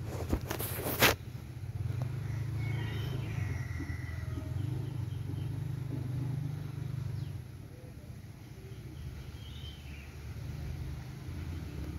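Outdoor ambience with a steady low rumble that eases off after about seven seconds, a few faint bird chirps, and a couple of sharp knocks about a second in.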